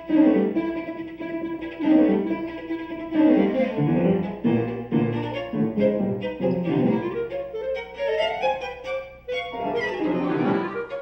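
Instrumental theme music on bowed and plucked strings, with a quick succession of notes.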